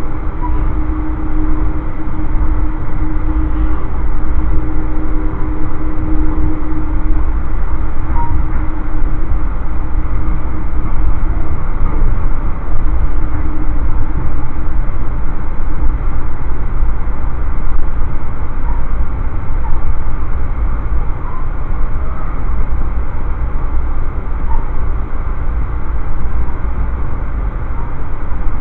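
Steady rumble and rush of an Amtrak passenger train running at speed, heard from inside the car. A faint steady hum rides on it for the first several seconds, then fades.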